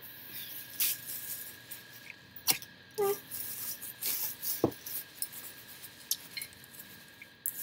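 Items and packaging being handled in a cardboard box: rustling with a scatter of light clicks and knocks of small hard objects, the sharpest a few seconds in.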